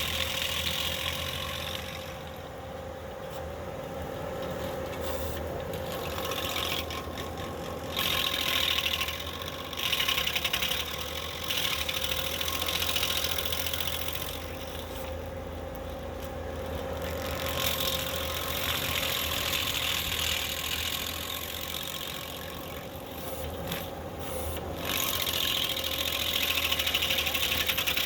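Skid steer engine running steadily with a stump grinder attachment working, while a harsher grinding noise swells and drops every few seconds.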